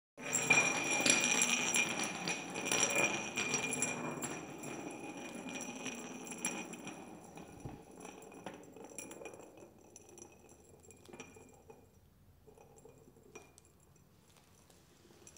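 Small drinking glasses rolling and knocking together on a hard floor, clinking with their rims ringing. The clatter starts abruptly and densely, then thins out and fades over about twelve seconds into scattered single clinks.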